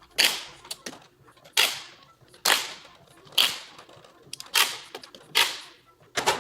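A power tool running the bolts of a Miata differential down in short bursts: seven sharp bangs, about one a second, each dying away quickly.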